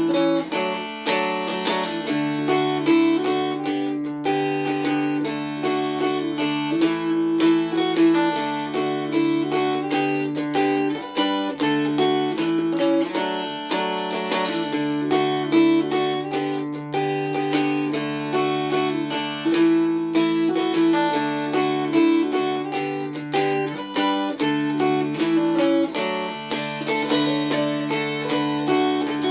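Mountain dulcimer played solo: a melody of quick plucked notes over a steady low drone.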